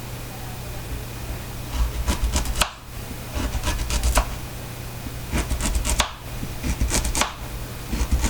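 Kitchen knife slicing carrots against a cutting board, in several quick runs of chops with short pauses between them.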